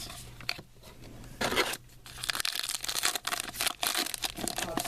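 Trading card pack wrapper being torn open and crinkled by hand, an irregular crackling that starts about a second and a half in and grows busier toward the end.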